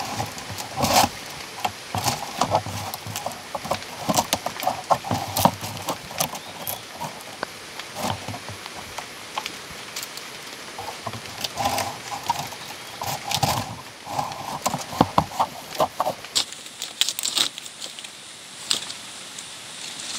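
Split bamboo slats clacking and knocking against each other and the bamboo frame, with leaves rustling as they are laid. The knocks come in irregular clusters, and they thin out in the last few seconds.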